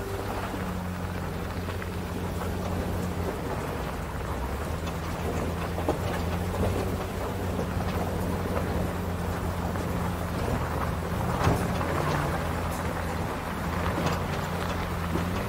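Pickup truck driving up a dirt road: a low steady engine hum that shifts in pitch a few times, under the rough crunching rumble of tyres on gravel. Scattered sharp clicks and knocks of stones and bumps, the loudest about eleven seconds in.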